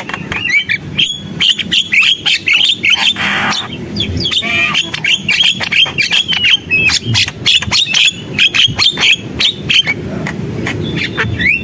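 Javan myna (jalak kebo) singing in full song: a rapid, unbroken chatter of short whistles, clicks and harsh squawks.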